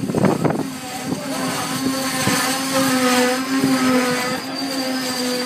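Passenger train coaches rolling slowly past as the train brakes to a stop, with a steady high-pitched squeal of several held tones from the braking wheels; a higher whistle-like tone joins near the end.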